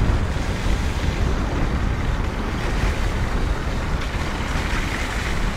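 Steady wind rush over the microphone while riding along a road, with a low rumble of the moving vehicle underneath.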